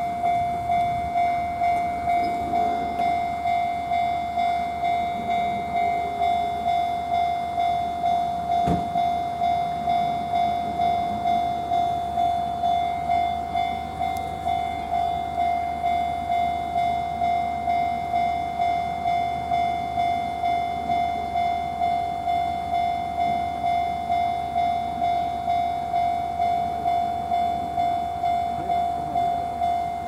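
Japanese railway level crossing's electronic warning bell ringing steadily at about two dings a second, sounding while the barriers are down and a train is due. There is a single knock about nine seconds in.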